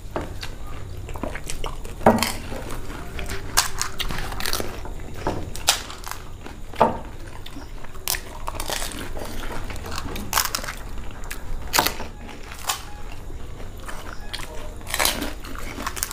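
Crisp fried fuchka (pani puri) shells cracking and crunching as they are poked open with fingers, bitten and chewed quickly, many short sharp crunches at an uneven pace.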